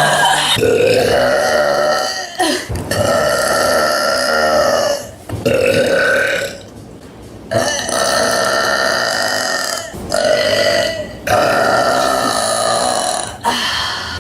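A young woman belching loudly after drinking soda: a run of about six long, drawn-out belches with short breaks between them.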